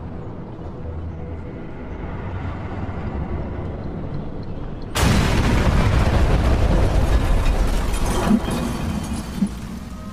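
A small decoy bomb exploding about halfway through: a sudden loud blast, then a long rumbling roar, with two sharp cracks near the end.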